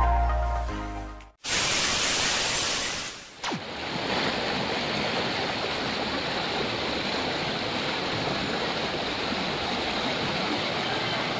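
Intro music cuts off about a second in, followed by a two-second burst of loud hiss. Then a shallow, fast-flowing river rushes steadily over rocks.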